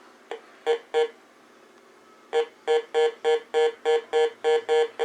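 Heathkit GD-1190 metal detector beeping as a nickel is passed over its search coil: the detector's target tone. A short blip and two beeps come in the first second, then, from about halfway, a run of even beeps about three a second, each one steady mid-pitched tone.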